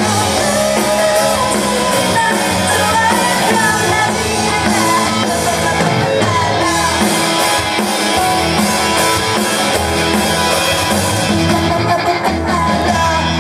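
A woman singing into a microphone over loud rock accompaniment with electric guitar, bass and drums, through a PA system.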